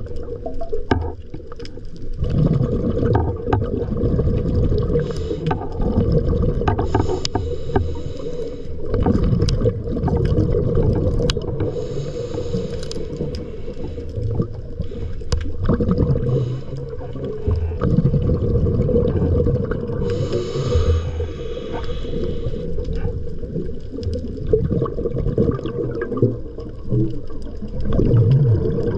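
Underwater sound of a diver's dive: low rumbling and gurgling water with bubbles, a steady hum, and a hiss every several seconds.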